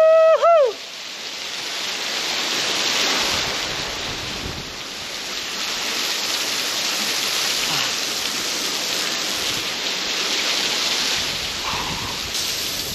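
Steady rushing of water running over rocks, swelling and easing over several seconds. A loud, high, held note with a short second note cuts off in the first second.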